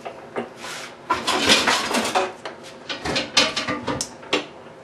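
Irregular clattering and knocks of things being handled on a kitchen counter as a stand mixer's power cord is uncoiled, from about a second in until shortly before the end.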